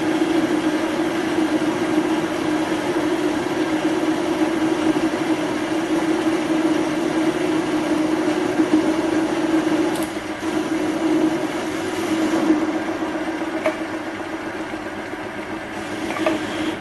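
Metal lathe running with its gearbox under power feed, taking a coarse cut on a cast aluminium workpiece: a steady motor and gear hum with cutting noise over it. The sound eases a little about ten seconds in.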